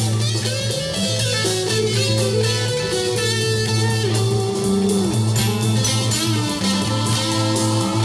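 Psychedelic rock music playing from a vinyl record on a turntable.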